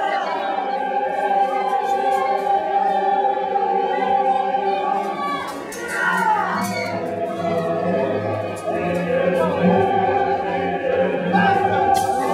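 Choir singing, several voices holding long notes together in parts.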